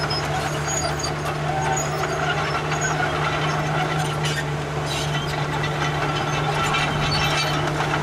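Komatsu crawler bulldozer's diesel engine running steadily under load as the blade pushes dirt, with scraping and clatter from the tracks and soil heavier in the second half.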